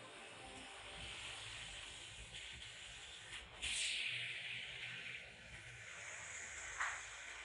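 Double-head CNC laser cutting machine running with a steady air hiss, with a louder burst of hiss about halfway through and a brief click near the end.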